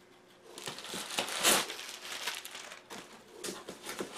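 Bubble wrap and styrofoam packing crinkling and rustling as hands dig through a shipping box, in irregular bursts with a louder crinkle about a second and a half in.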